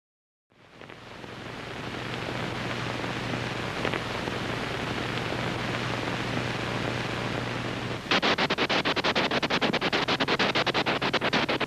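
Film projector running. A steady hiss with a low hum fades in, and about eight seconds in it becomes a rapid, even clatter.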